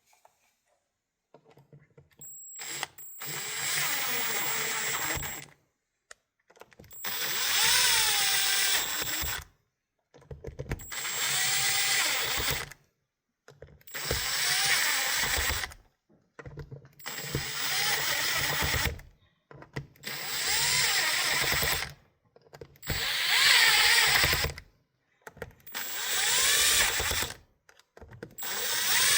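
Cordless drill/driver spinning bolts in, in about nine runs of two to three seconds each with short pauses between, the motor's pitch dipping and rising within each run as the bolts snug down before final torquing.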